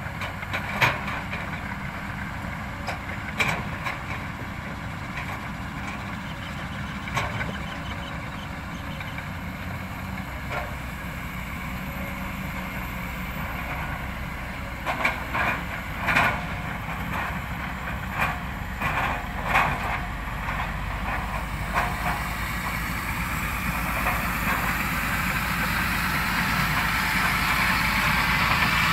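Diesel engines of a Kobelco SK200 excavator and a loaded log truck running steadily, with several sharp knocks of timber logs striking the load as the excavator works. Over the last several seconds the engine noise grows steadily louder.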